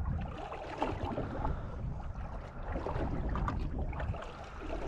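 Small waves lapping and slapping against the hull of a small metal fishing boat, with irregular little knocks over a steady low rumble.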